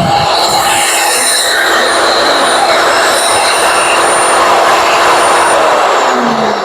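YERYORK 15-amp electric wood chipper running loudly with a steady hum and a high whine. Near the end it is switched off and its motor winds down, falling in pitch.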